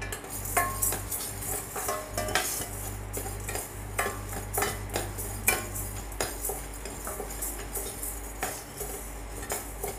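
A steel spoon stirring and scraping dry horse gram and moong dal as they roast in a stainless steel pan, the seeds rattling against the metal in frequent, irregular scrapes and clicks.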